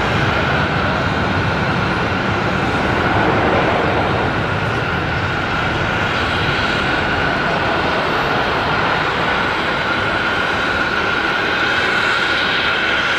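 Boeing 787-9 Dreamliner's Rolls-Royce Trent 1000 turbofans running as the airliner rolls along the runway: a steady, loud jet rush with a high whine held throughout.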